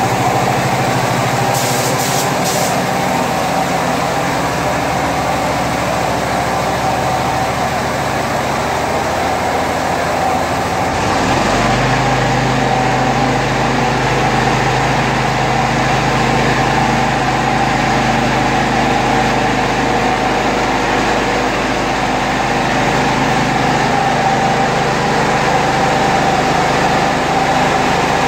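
Steady machine hum with a couple of short spray-gun hisses about two seconds in. Around eleven seconds in the hum deepens and the higher hiss drops away.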